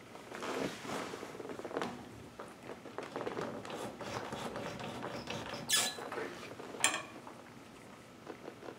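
Scattered scraping and rustling as hands handle a baby gate and its mounting hardware against the wall, with two sharp clicks about a second apart near the middle.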